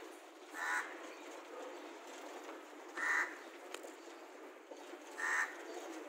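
A crow cawing three times, short calls about two and a half seconds apart.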